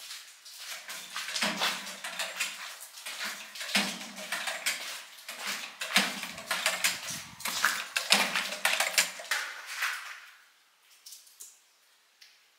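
Footsteps crunching and scuffing on a gritty rock floor, a dense, irregular run of clicks and crunches that thins out and goes quiet about ten seconds in.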